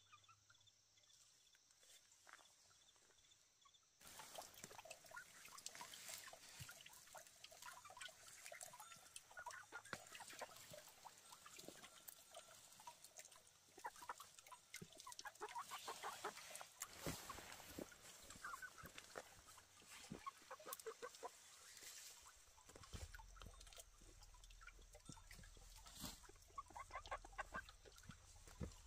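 Farmyard poultry clucking and calling in short repeated bursts, starting about four seconds in.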